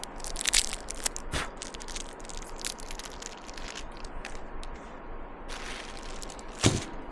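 Crinkling and rustling of candy wrappers and clear plastic packaging being handled, in scattered small crackles, with a louder rustle near the end.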